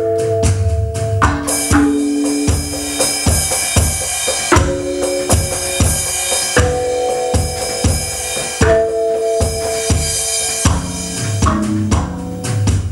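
Roland electronic drum kit played in a steady rock beat of kick and snare with cymbal crashes, over a song with held melodic notes.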